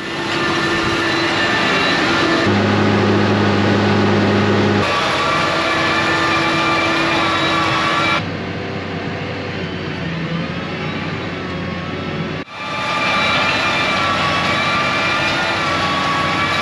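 New Holland T6.180 Methane Power tractor's 6.7-litre methane engine running under load while pulling a tillage implement through stubble. It is heard in several short cuts, the engine note jumping between them, with a slow rise and fall in pitch in the middle.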